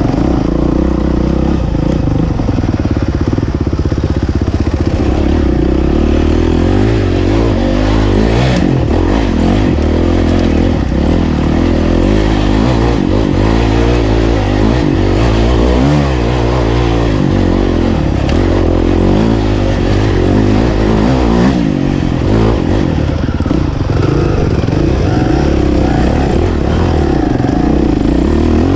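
Enduro dirt bike engine being ridden, its pitch rising and falling continually as the throttle opens and closes.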